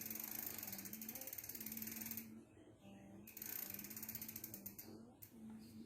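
Bicycle freewheel ratchet clicking rapidly and evenly as the chain drive is turned, in two spells with a pause of about a second between them.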